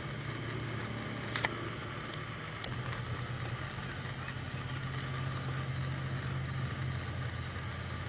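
Steady low hum of a running motor, a little louder from about three seconds in, with one faint click about a second and a half in.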